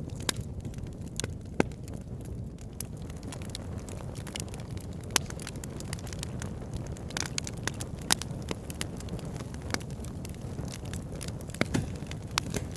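Wood fire burning, a steady low rush of flames with irregular crackles and sharp pops scattered throughout, a few pops standing out louder than the rest.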